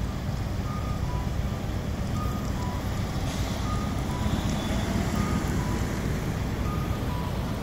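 An electronic two-tone chime, a higher note then a lower one, repeating about every one and a half seconds over a steady low rumble.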